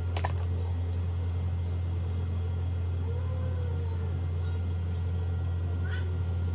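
A steady, unchanging low hum, with a faint short pitched sound near the end.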